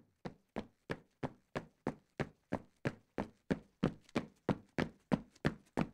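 Intro sound effect: a steady run of sharp percussive hits, about three a second, getting gradually louder.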